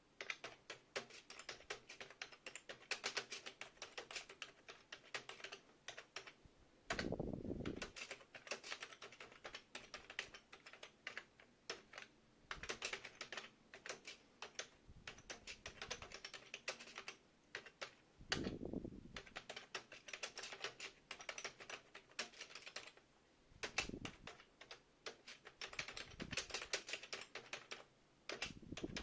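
KB-4001 computer keyboard being typed on in quick runs of key clicks with brief pauses between them. A few times a louder, deeper thudding lasts up to about a second.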